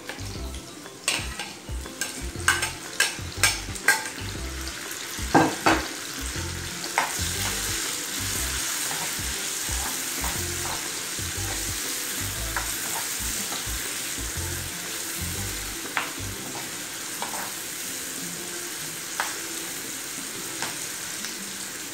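Chopped onion and tomato dropped into hot oil with sautéed garlic in a frying pan. A metal spoon clicks sharply against the plate and pan several times in the first six seconds, then the pan sizzles steadily as the vegetables are stirred, with an occasional click of the spoon.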